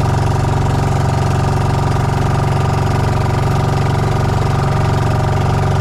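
Fishing boat engine idling steadily with an even, rapid firing beat.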